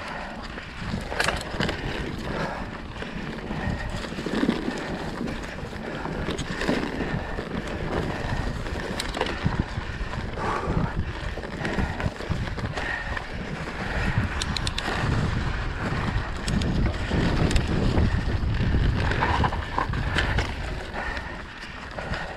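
Mountain bike riding fast down a dirt forest trail: tyres rolling over dirt and leaves, with frequent knocks and rattles of the bike over bumps, and wind rushing on the microphone. It grows louder in the second half.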